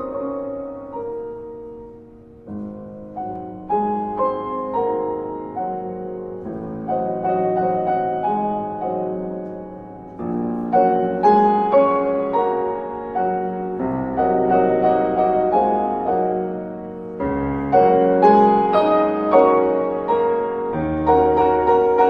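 Piano music: chords and melody notes, each struck and fading, growing louder about ten seconds in.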